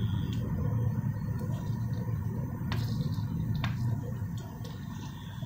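Raw potato slices being laid by hand, one at a time, into shallow oil in a stainless steel pan, giving a few light taps and clicks over a steady low hum.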